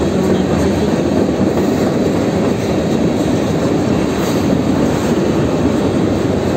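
Hopper cars and tank cars of a freight train rolling past, a loud, steady rumble of steel wheels on the rails.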